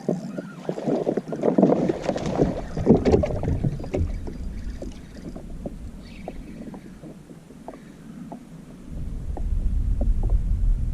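Water splashing and small knocks against a kayak, busiest in the first few seconds. From about nine seconds in, wind buffets the microphone with a low rumble.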